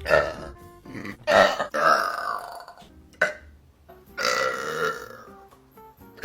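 A quick run of girls' burps, about five: short sharp ones and two long, drawn-out ones.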